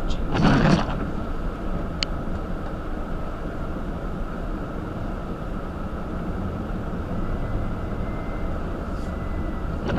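A car driving on a snowy lot: steady low road and engine rumble, with a short louder rush of noise about half a second in and again at the very end.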